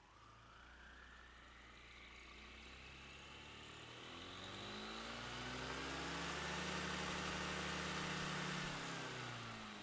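Motor scooter engine revving with the CVT transmission cover off and the rear wheel raised, so the belt-driven pulleys spin unloaded. The engine note climbs steadily for several seconds, holds high for about a second and a half, then falls back near the end.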